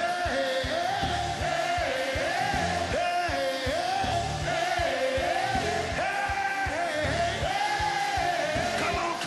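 Live up-tempo gospel praise-break music: a male vocalist sings a wavering melody into a microphone over a driving drum beat and bass.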